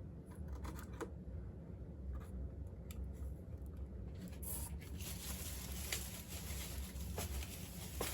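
Light rustling and scattered small clicks of diecast car packaging being handled, over a steady low hum. The rustling gets brighter and more continuous about four and a half seconds in.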